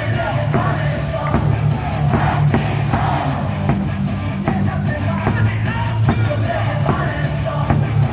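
Baseball stadium crowd singing a batter's cheer song along with loudspeaker music, over a steady, regular beat.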